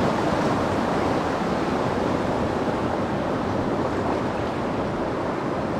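River rapids: white water rushing steadily.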